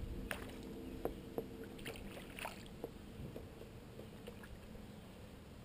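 Kayak paddling: a double-bladed paddle dipping and splashing, with a few light clicks and knocks in the first three seconds, then quieter water noise.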